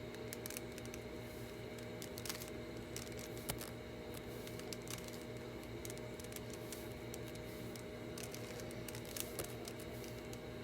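Steady low electrical hum in a small room, with a few faint scattered clicks and small handling rustles.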